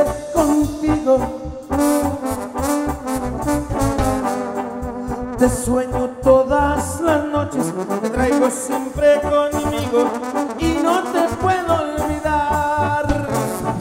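Live regional Mexican band playing an instrumental passage: trumpets and trombones carry the melody over drums and bass guitar.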